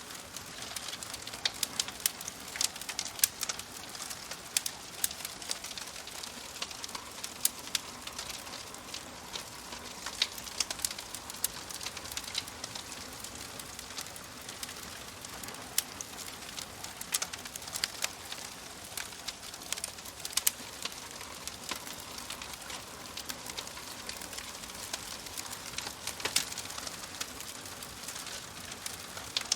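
Crackling fire: irregular sharp pops and snaps, several a second, over a steady soft hiss.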